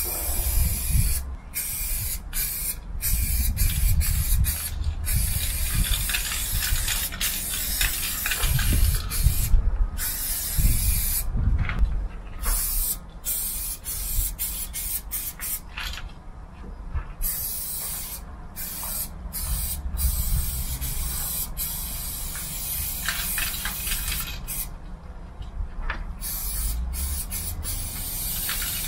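Aerosol spray-paint can hissing in long bursts with short pauses between them as the nozzle is pressed and released, over a low rumble.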